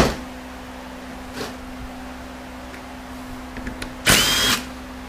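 A handheld electric power tool runs in one short burst of about half a second, about four seconds in, its motor whine rising and then holding. A knock sounds at the start, over a steady low hum.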